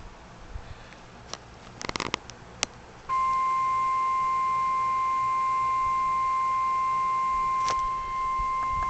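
A few sharp clicks, then about three seconds in a steady emergency alert warning tone starts abruptly and holds at one pitch. It is the NOAA Weather Radio 1050 Hz alarm that announces a warning message.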